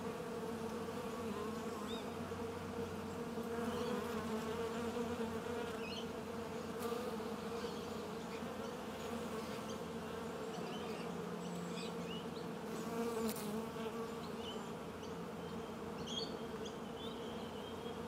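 Many honeybees buzzing together in a steady, even hum, the massed drone of a beehive or swarm.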